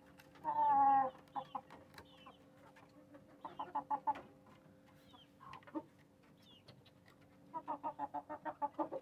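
Chickens clucking: one louder drawn-out call about half a second in, then runs of short, quick clucks, the longest near the end.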